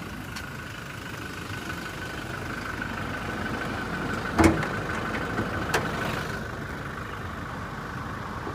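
Toyota Innova Venturer's 2.4-litre four-cylinder turbodiesel idling steadily. About four and a half seconds in comes a sharp clunk, the loudest sound, then a lighter click about a second later as the bonnet is released and lifted.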